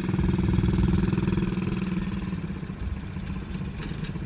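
ATV engine running at a steady pitch while the quad drives slowly; the hum eases off after about two seconds.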